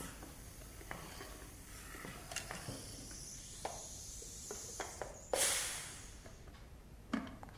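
Pressure cooker's whistle weight nudged with a wooden spatula: a few light taps, then about five seconds in a short hiss of leftover steam escaping that fades away within about a second, the last of the cooker's pressure being let out.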